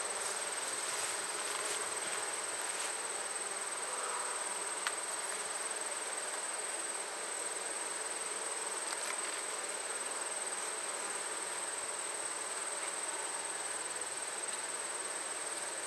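Honey bees buzzing steadily around an open hive, with a steady high-pitched insect trill behind them.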